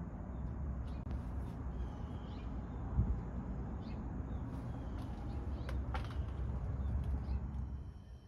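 Outdoor ambience: a steady low rumble, with a bird chirping briefly a few times and some faint knocks.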